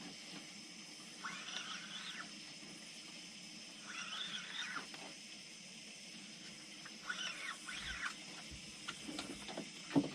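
Night-time animal chorus: a steady high drone with a raspy call repeating about every three seconds, and a few low knocks near the end.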